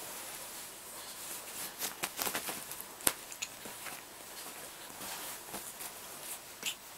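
Duvet fabric rustling and scuffing as a Bengal kitten pounces on and wrestles with a feather wand toy: a run of short scratchy rustles and clicks, the sharpest one a little after three seconds in.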